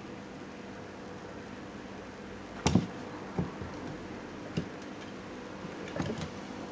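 Kittens playing under a chair, making a few scattered knocks and taps. The loudest comes about two and a half seconds in, with a cluster near the end, over a steady low hum.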